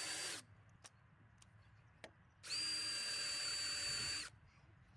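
DeWalt brushless cordless drill spinning a 3/8-inch masonry bit through a bolt hole in a wooden post to mark the brick behind it, in two short runs with a steady high whine. One run stops just after the start, and a second of about two seconds begins about halfway through.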